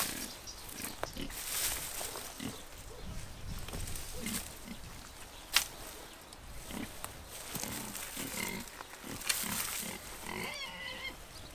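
Pigs grunting again and again in short low grunts, mixed with the rustle and crackle of dry tomato plants being pulled out of a garden bed. One sharp crack about halfway through is the loudest sound.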